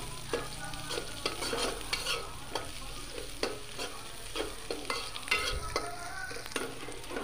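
Metal spatula scraping and knocking against a metal pot, about two strokes a second, as chopped onion and green chillies are stirred while they fry in oil, with a light sizzle underneath.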